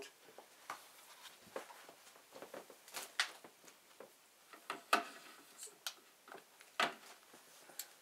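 Faint, irregular knocks and clicks of hands handling things at close range, about a dozen scattered over several seconds.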